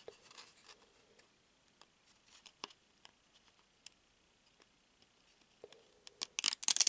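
Trading cards being handled and peeled apart by hand: soft sliding of card stock with scattered faint ticks, then a quick run of sharp, louder card snaps and rustles near the end as stuck-together cards come apart.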